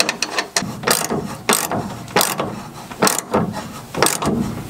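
Socket ratchet wrench clicking in uneven strokes as it tightens a battery cable's terminal nut on a power junction block stud.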